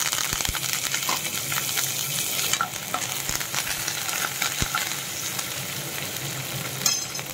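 Hot oil sizzling in a nonstick kadai as green chilli pieces and curry leaves fry in a tempering of chana dal, urad dal, mustard and cumin seeds, with a steel spatula stirring through the pan. The sizzle is strongest at first and eases somewhat after about two and a half seconds.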